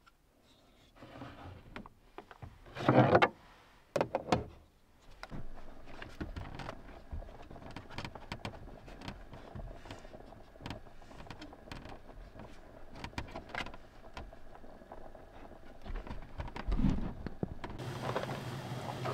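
Cooking and handling sounds at a counter: two loud clatters about three and four seconds in, then scattered light knocks and clicks over a steady low hiss.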